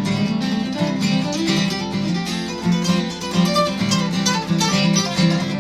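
Acoustic guitar music, strummed, with picked notes and no singing.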